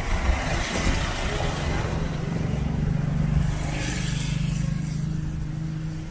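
Street traffic: motor vehicles passing close by, with one engine's steady hum from about a second and a half in until near the end.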